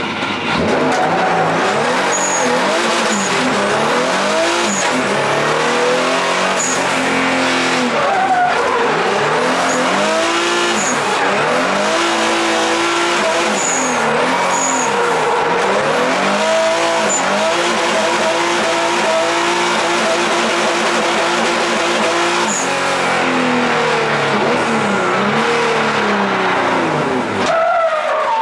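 Infiniti G35 drift car's 3.8-litre twin-turbo V6 heard from inside the cabin, revving up and dropping back again and again through a drift run, with the tyres skidding.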